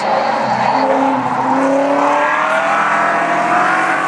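A street stock race car's engine running hard on a qualifying lap, its pitch climbing slowly as the car accelerates.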